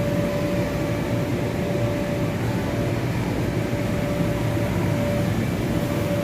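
Steady drone of the electric blower fans that keep inflatable bounce houses and slides inflated, with a constant hum tone over a low rumble.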